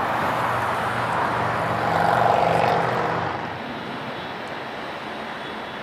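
Large jet airliner's engines passing close, a dense roar with a humming tone that swells to a peak about two seconds in, then drops away about three seconds in to a steadier, quieter rumble.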